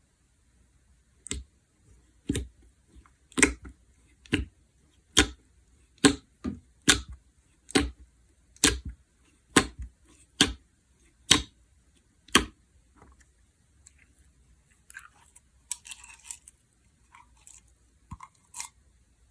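Thick jiggly slime being pressed and squished by hand, giving sharp wet pops about once a second, a dozen or so in a row, then softer scattered crackles and squishes near the end.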